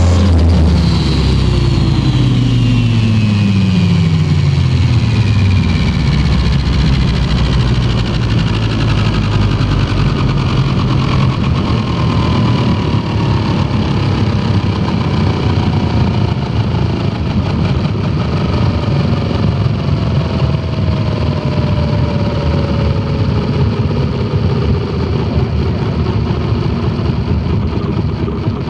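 Electric RC helicopter (Align T-Rex 500) winding down with the motor off: the rotor and drivetrain whine falls steadily in pitch. The lowest tone drops away within the first few seconds, while higher tones keep sliding down through the rest, over a steady rush of air from the slowing blades.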